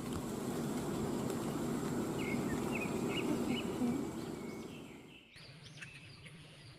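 Water sloshing and splashing as a muddy toy truck is washed by hand. The sound swells, holds, then fades and cuts off about five seconds in.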